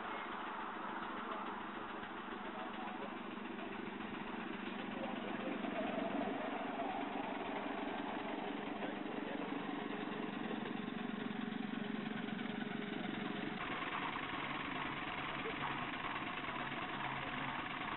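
A small engine runs steadily with a low hum. It gets louder about four to six seconds in, and its sound changes abruptly about two-thirds of the way through, with faint voices in the background.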